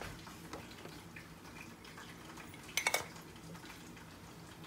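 Quiet kitchen room tone, broken about three seconds in by a quick cluster of light clicks and clinks from kitchen items being handled.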